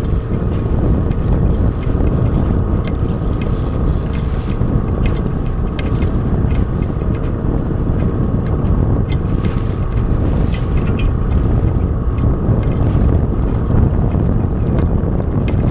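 Wind buffeting the microphone over the steady drone of a small outboard motor running at trolling speed, with a few faint clicks.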